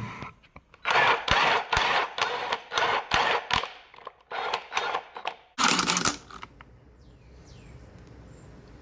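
Milwaukee M18 FUEL 2853-20 impact driver's motor spinning up in quick short bursts as the trigger is pulled on and off rapidly, about four a second at first, with a longer run about six seconds in. This rapid triggering sets off the tool's fault: its speed setting jumps from 2 to 3 on its own.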